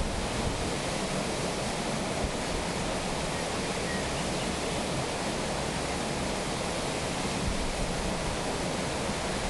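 Steady rush and splash of water driving an undershot Corten-steel waterwheel as it turns.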